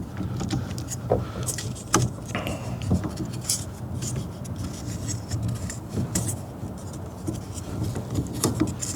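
Scattered clicks, taps and scraping of metal parts as a steering-column assembly is worked loose by hand, over a low steady hum.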